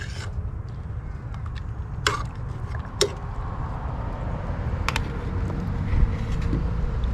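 A few sharp metal clinks, like tongs knocking against a cooking pot, about two, three and five seconds in, two of them ringing briefly, over a steady low rumble.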